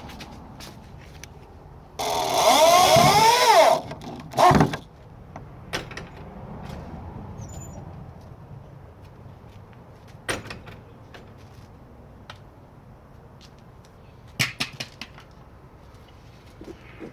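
A gate swinging on its hinges with a loud creak whose pitch bends up and down, then knocking shut a moment later; a few short sharp knocks follow later on.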